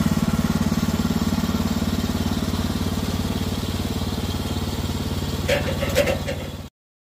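Woodland Mills HM130MAX sawmill's gasoline engine idling steadily, with a few short clicks near the end before the sound cuts off suddenly.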